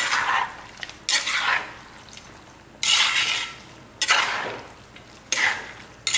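Metal spatula scraping and stirring chicken and dried red chillies frying in a clay pot, about one stroke a second, each scrape starting sharply and fading, over a faint frying sizzle.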